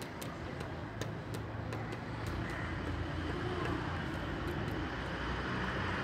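Crane truck's engine running as it lifts the crashed car, growing louder about two seconds in, with scattered light clicks in the first half.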